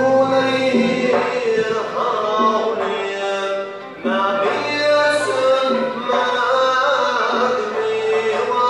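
Traditional Uzbek maqom music: a male voice sings a long melodic line over a small ensemble of plucked lutes, including an oud, and a bowed fiddle. The sound dips briefly just before four seconds in, then the full ensemble comes back in.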